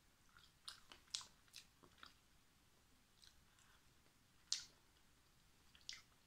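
Faint chewing of a spoonful of soft, warm mug cake, with a handful of short wet mouth and spoon clicks; the sharpest comes about four and a half seconds in.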